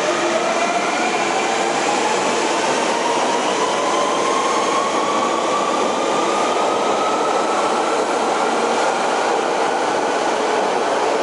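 London Underground Piccadilly line 1973 Stock train accelerating: its traction motor whine rises steadily in pitch over about ten seconds above a loud, steady running roar.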